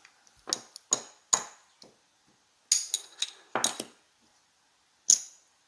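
Casino chips clacking together as they are picked up and stacked on the felt: sharp clicks with a short bright ring, coming in small clusters, with a last single click about five seconds in.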